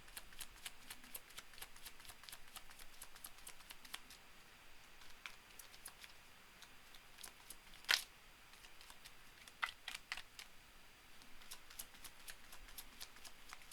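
Faint, scattered clicks and taps of tarot cards being handled, with one sharper snap about eight seconds in and a few quick clicks near ten seconds.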